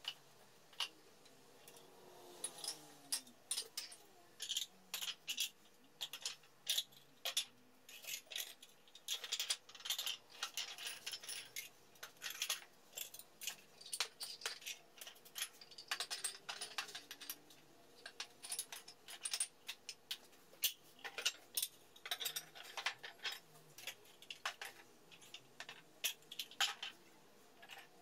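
Onta-ware pottery bowls and cups clinking against one another as they are picked up, stacked and cleared from a table: many short, sharp clinks at an uneven pace, some with a brief ring.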